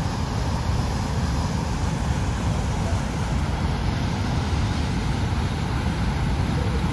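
Niagara Falls' American Falls plunging over its brink: a steady, deep, unbroken rush of falling water.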